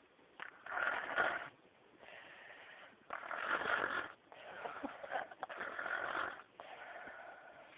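A sleeping young boy snoring like a grown man: a run of snoring breaths, each about a second long, one after another.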